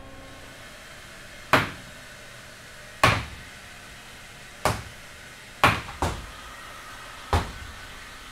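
Hammer striking dredged rock samples, six sharp blows roughly a second and a half apart, two of them in quick succession partway through. The blows are chipping off the rock's outer surface that was exposed to the ocean.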